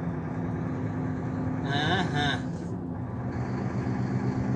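Vehicle engine running steadily with road noise, heard from inside the cab while cruising on a highway. Its low note drops a little about three seconds in. A brief vocal sound comes about two seconds in.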